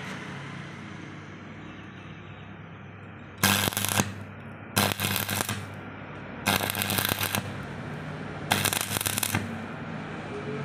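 Stick-welding arc crackling in four short bursts, each under a second, starting about three and a half seconds in: tack welds being laid on a hinge barrel against a steel frame. A steady low hum runs underneath.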